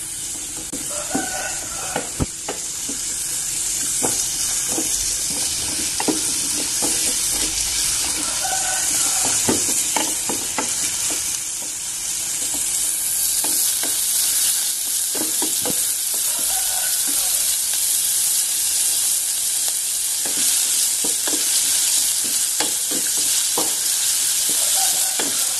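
Diced onion sizzling in butter and oil in a metal pot, being sautéed until fragrant, while a wooden spatula stirs and scrapes through it with frequent knocks against the pot.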